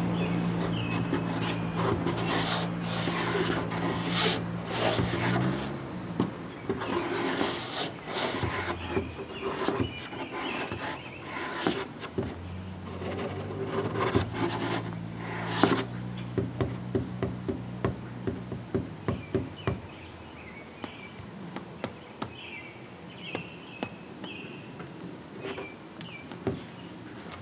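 A steady low drone that fades out and comes back, under bursts of rustling and knocks and then a run of sharp ticks, with bird chirps now and then.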